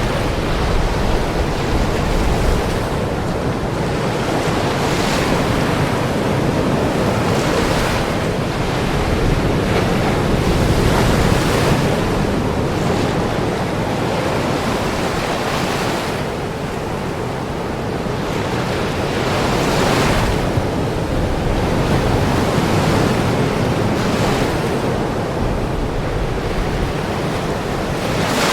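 Ocean waves breaking and washing ashore, a fresh wash surging every few seconds over a steady rush of surf.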